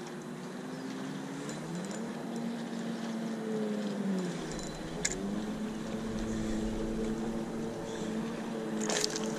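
Boat motor humming steadily, its pitch sliding up and down several times as the speed changes. A few sharp clicks come through about five seconds in and again near the end.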